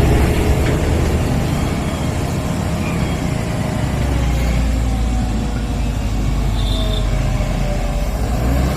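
Heavy diesel engine of a JCB backhoe loader running steadily with a low rumble. A short high squeal comes about two-thirds of the way through.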